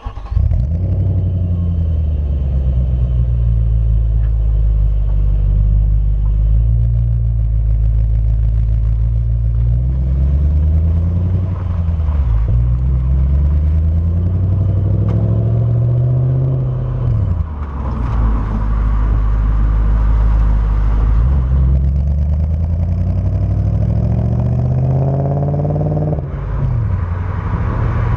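A 2003 Audi S4's 4.2 V8 through a Milltek Sport exhaust fires up at the start and settles into a steady, loud idle. From about ten seconds in, the revs rise and fall several times.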